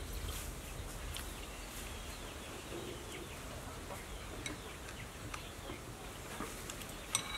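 Quiet outdoor ambience with birds calling, and a few light clicks of a metal spoon in a ceramic soup bowl; the sharpest click comes near the end.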